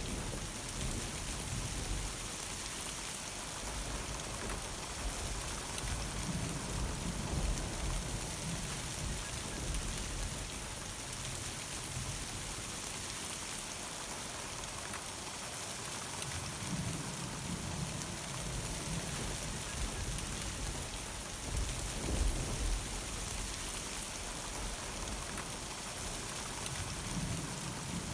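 Steady heavy rain pattering on surfaces during a thunderstorm, with low rumbles of thunder swelling now and then.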